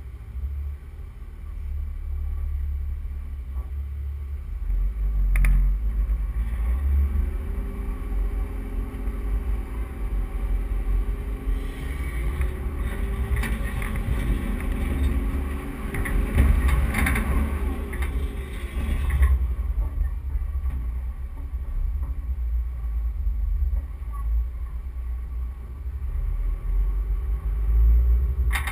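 Four-wheel drive driving over soft sand, heard from a roof-mounted camera: a heavy wind rumble on the microphone over the engine working under load. The engine note rises and falls through the middle stretch as the vehicle climbs a dune.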